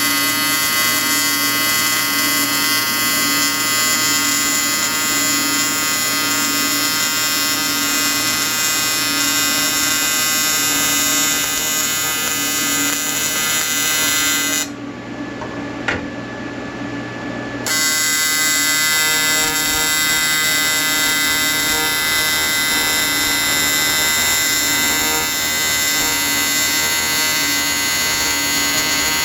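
A TIG welding arc buzzing steadily with a dense, even drone. The arc stops about fifteen seconds in and strikes again about three seconds later, with a single click during the pause.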